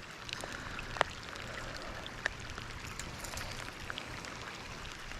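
A faint, steady patter of water with scattered small drips and ticks, a sharper tick about a second in and another just after two seconds.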